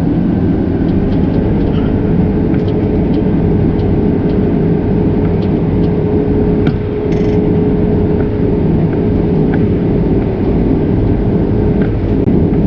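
Combine harvester running as it cuts damp soybeans: a steady, growling mechanical drone with one tone that rises slightly in the first second and then holds, and scattered light clicks.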